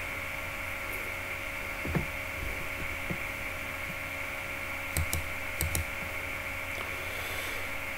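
Steady electrical hum and hiss of the recording with no speech, broken by a few faint clicks about two seconds in and twice more a little after five seconds.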